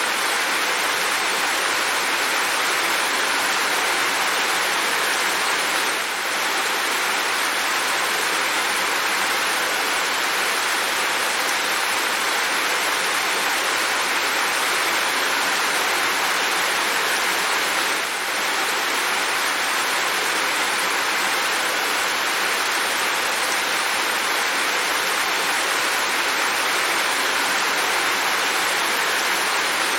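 Steady rain falling in a dense, even hiss, with a brief dip in level about every twelve seconds.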